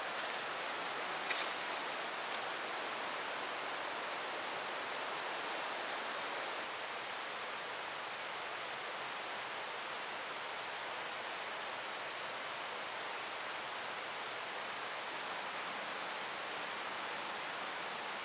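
Steady, even rushing noise of outdoor ambience with no distinct events apart from a faint tick or two.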